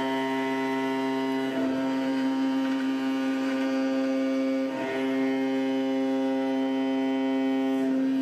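MR-1 gantry CNC mill cutting aluminium with a 3/8-inch two-flute carbide end mill spinning at 8000 RPM, on an adaptive clearing pass. A steady pitched hum from the cut, which breaks briefly about every three seconds.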